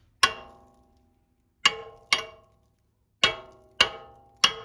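Hammer striking the back of a rusted BMW X3 F25 rear brake rotor to knock it free of the hub. Six sharp metallic blows at an uneven pace, each leaving the rotor ringing briefly: it is stuck on with rust.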